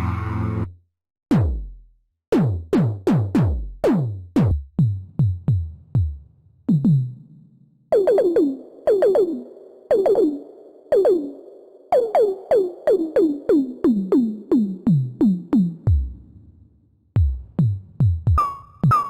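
Roland System-100 software synthesizer playing a rhythmic run of short percussive notes, each a quick downward pitch sweep like a synth zap or tom, about two to three hits a second, with a short break near the end. A held chord stops just under a second in.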